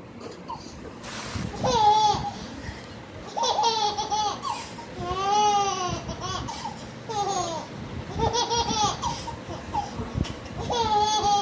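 Toddler laughing in about six high-pitched bursts with rising and falling pitch.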